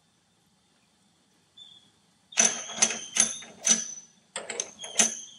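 Steel dovetail chuck jaw segments clacking against each other and the metal lathe bed as they are handled and set down. About two seconds of near silence, then a quick run of about eight sharp metallic clacks, each with a short ring.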